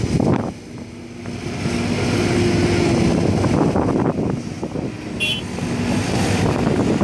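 Diesel engine of a heavy construction machine running. It dips briefly near the start, then grows louder from about a second in, with a steady whine through the middle and a brief high squeak a little after five seconds.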